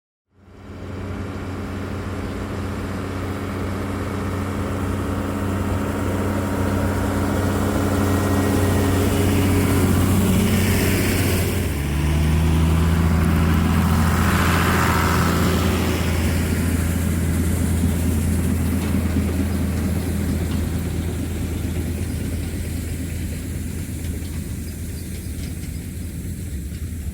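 Engine of a 1980-era self-propelled swather running steadily under load. Its note shifts and grows slightly louder about twelve seconds in.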